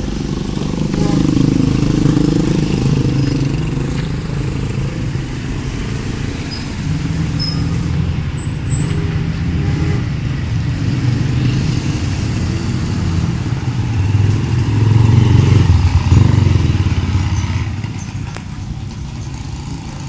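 A motor vehicle engine running close by as a steady low rumble, loudest about fifteen seconds in and falling away near the end.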